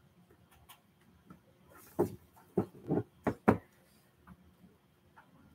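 Hard plastic football helmet being handled and turned over, giving a quick run of knocks and bumps about two to three and a half seconds in.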